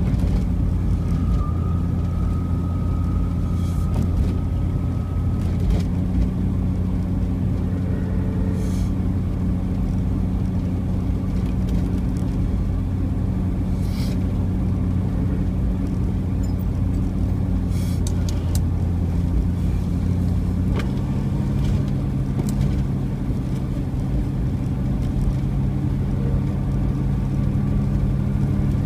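A car's engine and road noise while driving: a steady low drone whose pitch shifts about twenty seconds in, with a few faint clicks.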